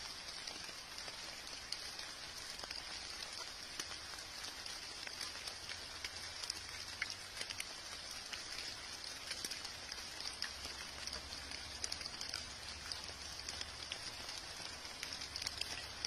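Light rain pattering on leaves: a steady hiss scattered with many small, irregular drop ticks.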